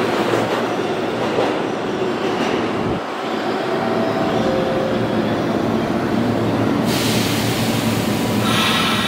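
New York City subway train running through the station: a steady loud rumble of wheels on track that dips briefly about three seconds in. Near the end a high hiss comes in, followed by a high squeal of several steady tones.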